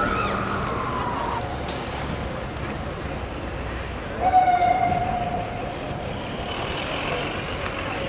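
Emergency vehicle siren falling in pitch and winding down, stopping about a second and a half in, over steady street noise; about four seconds in, a brief steady tone sounds for about a second.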